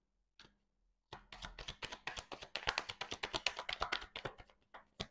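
A deck of Baralho Cigano oracle cards being shuffled by hand: after about a second of quiet, a quick run of crisp card-on-card clicks and slaps lasting nearly four seconds, ending with one sharper snap.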